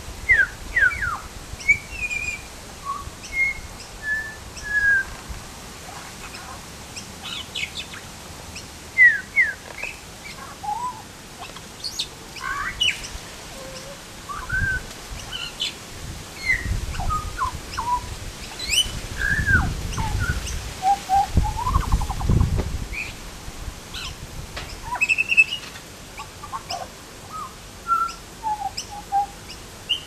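Pied butcherbird singing: a string of short, clear fluting notes and pitch glides, spaced irregularly. A low rumble runs under it from about halfway to about three quarters through.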